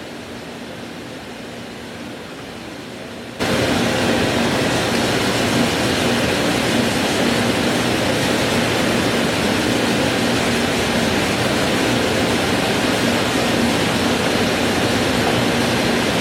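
Steady rushing machine noise with a faint hum, jumping abruptly louder about three seconds in and then holding steady.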